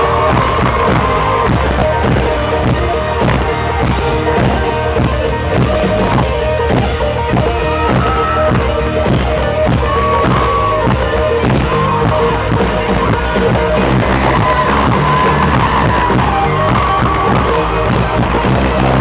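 Live country-pop band playing loudly over a concert PA, with a drum kit keeping a steady beat under electric guitars and a wavering lead line.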